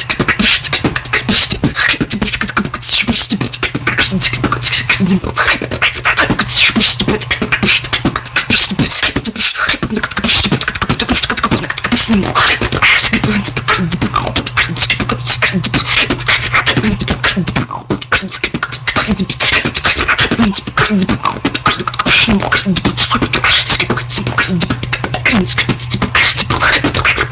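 Fast, continuous beatboxing: rapid clicks, snares and hi-hat sounds over a steady low hum. It drops out briefly just before the ten-second mark and again around eighteen seconds.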